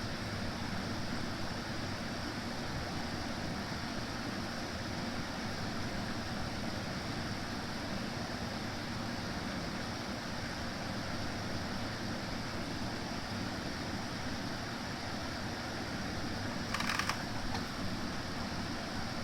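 Consul C1A12ABB 12,000 BTU portable air conditioner running with a steady whir and low hum, broken near the end by a brief, sharp, higher-pitched burst of noise lasting about half a second: the unexplained strange noise the unit makes.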